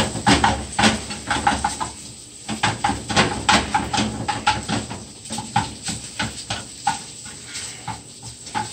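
A utensil scraping and knocking against a frying pan in quick, irregular strokes as packed rice is broken up and stirred, over a steady sizzle of the rice frying in butter.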